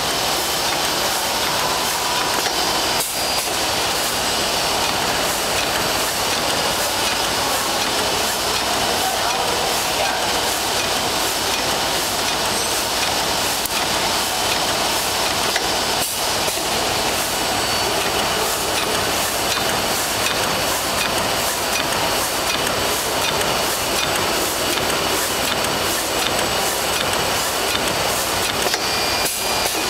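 Plastic bag-making machine, Hyplas type HP-DBS-28ABSR-EC, running in production: a loud, steady mechanical clatter with a fast, regular ticking as it cycles and stacks finished bags.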